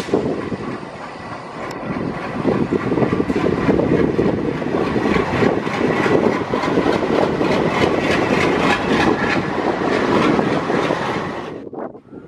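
Diesel locomotive running as it moves slowly along the station track, engine sound mixed with rapid clicking and clatter from the wheels and rails. It grows louder about two seconds in, then fades and cuts off near the end.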